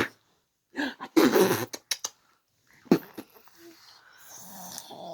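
Baby making short vocal noises: a longer squeal-like sound about a second in, a few small mouth clicks, and a sharp short sound near three seconds in.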